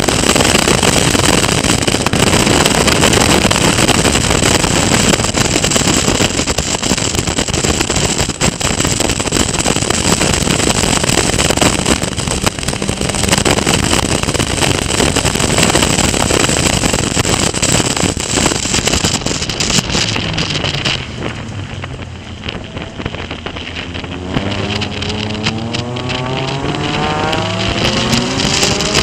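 Caterham Seven race car at speed, heard onboard: wind rush on the microphone over a steady engine drone. About two-thirds of the way through, the engine note falls as the car slows for a corner, then climbs again as it accelerates out.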